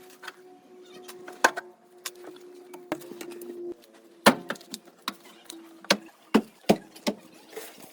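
Irregular sharp knocks and clicks over a faint steady hum, with a cluster of louder knocks in the second half.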